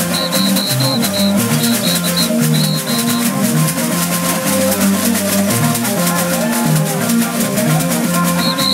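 Music: a fast, even shaker rhythm over a bass line of changing notes, with short high repeated notes that drop out about three seconds in and come back near the end.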